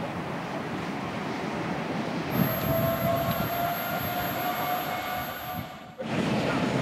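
DC fast-charging station humming while it charges an electric van, joined about two seconds in by a steady whine of several pitches that cuts off abruptly near the end.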